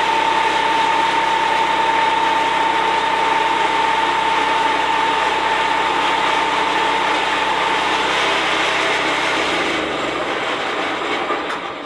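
Portable band sawmill running loud and steady, its engine and blade noise carrying a high steady whine that stops about eight seconds in. Near the end the engine is shut off and winds down, its pitch falling until it goes quiet.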